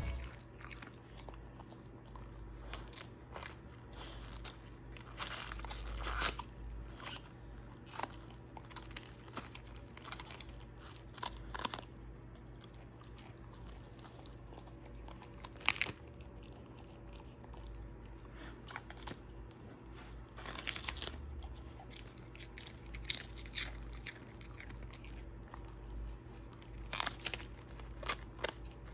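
A large husky biting and chewing raw cabbage leaves. It gives irregular crisp crunches with pauses between the bites.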